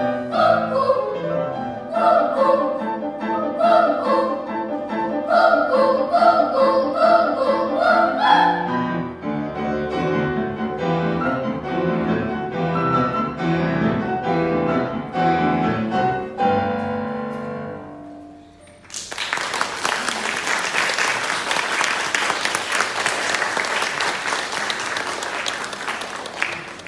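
Children's choir singing with piano accompaniment; the singing gives way to piano chords that die away, and about two thirds of the way in the audience breaks into sustained applause.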